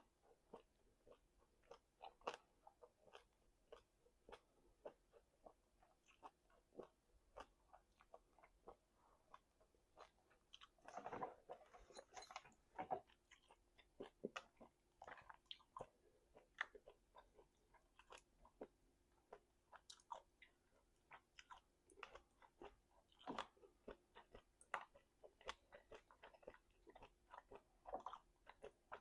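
A person chewing kalbi beef close to the microphone: a steady run of irregular wet smacks and clicks, with a louder, denser stretch of chewing about eleven to thirteen seconds in. A faint steady hum sits underneath.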